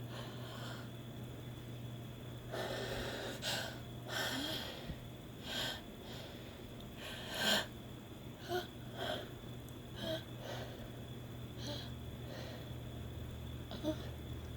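A woman sniffing, snorting and breathing hard through her nose after snuffing chhinkni sneezing powder, trying to bring on a sneeze. It comes as a string of about a dozen short, noisy bursts, the sharpest about seven and a half seconds in.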